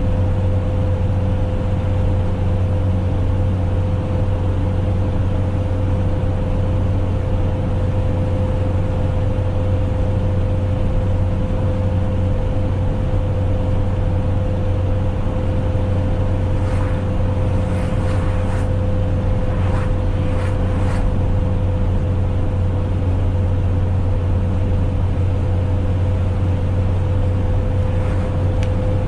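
Cab noise of a GAZelle light truck cruising on a wet highway: a steady low engine and road drone with a constant whine running through it. A few short clicks come a little past halfway and again near the end.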